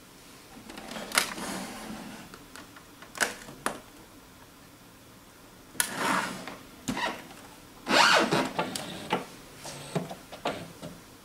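Plastic clicks, knocks and clatter from an HP DeskJet all-in-one printer's lid and access door being handled: a string of separate sharp knocks, with a longer clattering patch about eight seconds in.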